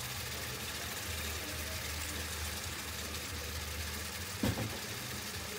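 Steady low hum with a single short knock about four and a half seconds in.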